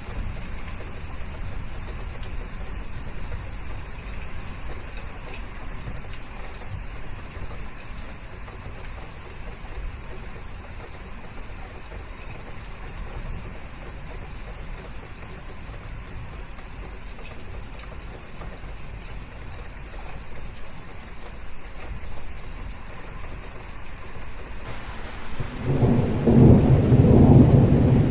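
Steady rainfall with a low rumble of thunder rolling in near the end, becoming the loudest sound.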